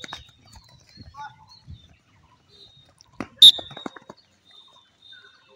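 One short, sharp whistle blast about three and a half seconds in, a coach's sports whistle signalling the players in a training drill.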